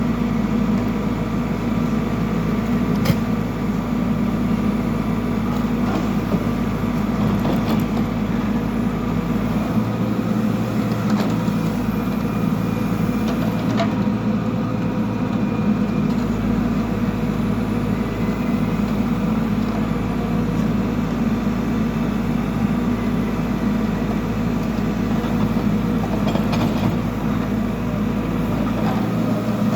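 Backhoe loader's diesel engine running steadily, with a few faint knocks.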